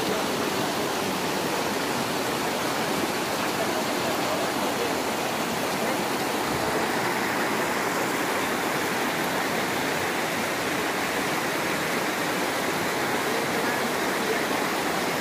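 Fast river water rushing and splashing steadily as it pours through a narrow channel and over and between the slats of a bamboo fish-trap platform.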